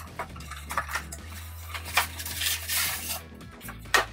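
A cardboard box and its polystyrene insert being handled and opened: scattered clicks, scrapes and rustles, with a sharper knock near the end, over a steady low hum.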